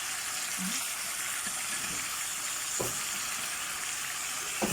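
Pieces of lamb searing in a hot pot with a steady sizzle, browned on high heat to give them colour. A couple of light knocks of a stirring utensil against the pot come near the middle and the end.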